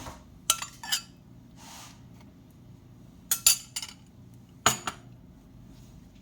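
Utensils clinking and knocking against dishes: a few sharp clinks in small clusters, about half a second in, around three and a half seconds, and again near five seconds.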